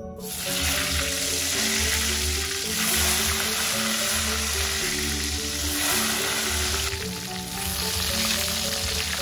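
Seasoned tempeh slices frying in hot oil in an aluminium wok: a sizzle that starts suddenly as the first slices hit the oil and keeps going steadily as more are slid in.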